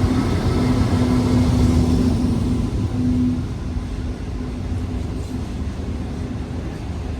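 Long diesel-hauled freight train passing: a steady low rumble of wagons on the rails with a steady diesel engine hum that fades away after about three seconds.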